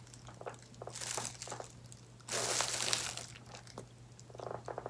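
Packaging crinkling and rustling as it is handled, with scattered small clicks and one louder crinkle lasting under a second a little after two seconds in. A steady low hum runs underneath.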